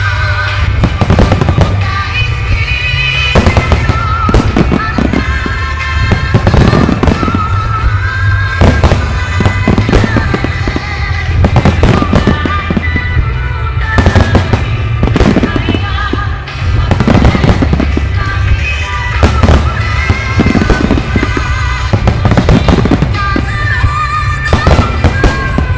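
Fireworks display: many shells bursting in quick succession, with repeated sharp bangs, often several in a second, over a continuous low rumble, and music playing along with the show.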